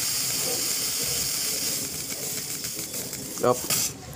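Steady high-pitched hiss of a pressurised spray cleaning a car engine part, cut off near the end.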